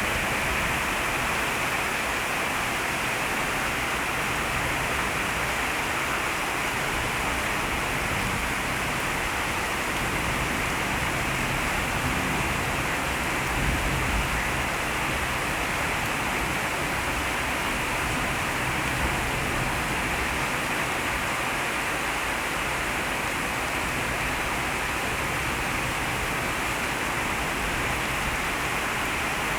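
Heavy rain falling steadily, an even, dense hiss that holds at one level throughout.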